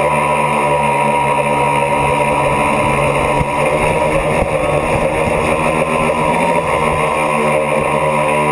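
Tricopter's electric motors and propellers whining steadily, recorded close up by its onboard camera, the pitch wavering slightly as the throttle changes. A low rumble of wind on the microphone joins in for a few seconds mid-flight.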